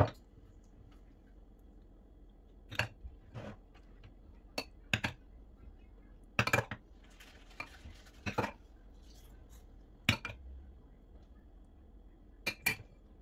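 Metal ladle clinking against a glass bowl while tomato purée is scooped out and poured into a silicone mould: about a dozen short, sharp clinks at irregular intervals, the loudest about ten seconds in.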